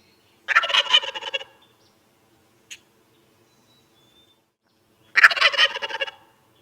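Turkey gobbling twice, each gobble a rapid rattling call about a second long, the second coming about five seconds after the first.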